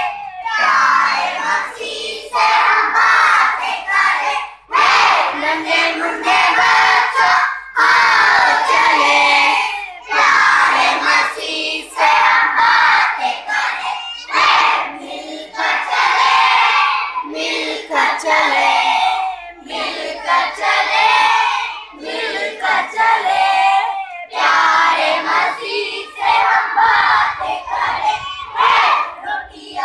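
A large group of children singing a Christian song together, loudly and half-shouted, in short phrases with brief breaks between them.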